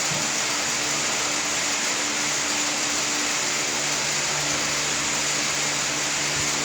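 Steady air noise from a running fan-type machine: an even rushing hiss with a faint low hum that comes and goes.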